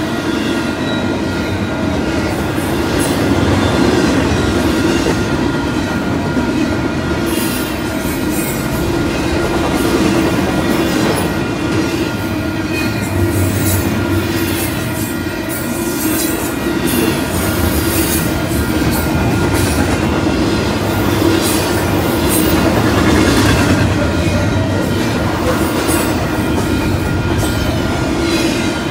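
Double-stack intermodal container train rolling past: a steady rumble of steel wheels on rail with irregular clicking over the joints and thin, high metallic wheel squeals now and then.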